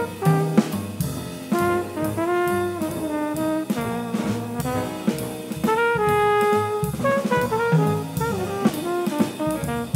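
Small jazz combo playing live: a trumpet carries a melodic line in stepped phrases over a stepping bass line, piano and a drum kit keeping time on the cymbals.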